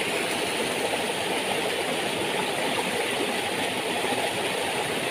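Small mountain stream rushing over rocks in a little cascade: a steady rush of white water.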